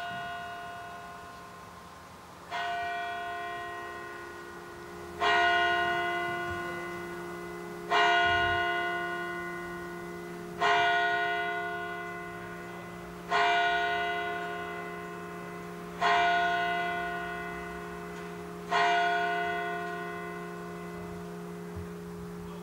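A single church bell struck slowly eight times, about every two and a half seconds, each stroke ringing on and fading before the next. The first stroke is softer than the others.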